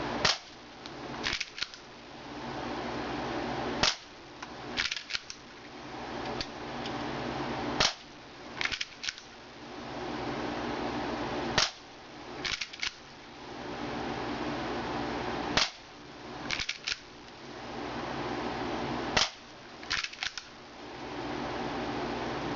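Full-metal spring-powered airsoft Broomhandle Mauser pistol firing six single shots about four seconds apart, each a sharp crack. About a second after each shot comes a quick cluster of clicks from the action as the spring pistol is cocked for the next shot, over a steady background hiss.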